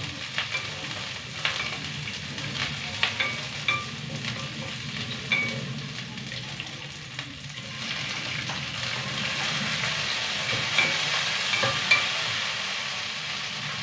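Food sautéing in a hot stainless steel pan: a steady sizzle, with a wooden spatula scraping and knocking against the pan as it is stirred. The sizzle grows louder from about eight seconds in.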